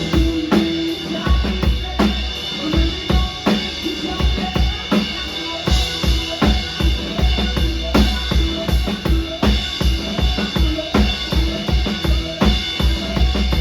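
Live rock band playing an instrumental passage, the drum kit driving a steady beat of kick and snare hits under a bass line.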